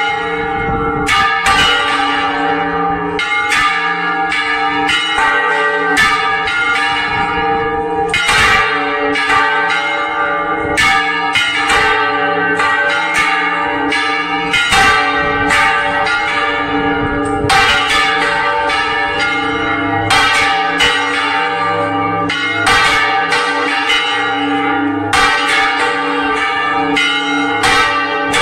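Several church bells swung full circle on their wooden headstocks in the Spanish volteo style, all ringing together. Their clappers strike in an uneven stream of about two strokes a second, and the loud, long rings overlap into a continuous clangour.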